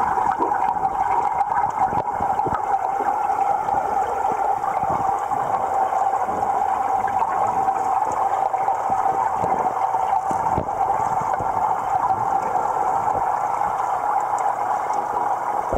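Steady, muffled rush of moving water inside a large aquarium, as a submerged camera picks it up, with faint scattered clicks and knocks.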